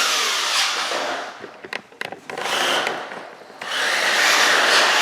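Remote-control monster truck's electric drive motor and big tyres running across the floor in surges, easing off about a third of the way in and again just past halfway, with a few sharp knocks in the first gap.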